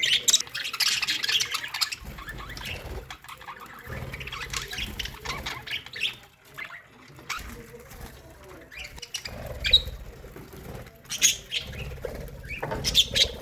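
A budgerigar colony chattering and chirping, a constant jumble of warbles and sharp chirps, with bursts of wing flapping.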